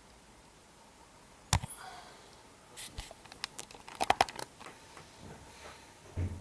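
Handling noises: a single sharp knock about 1.5 s in, then a quick cluster of clicks and taps, and a dull thump near the end.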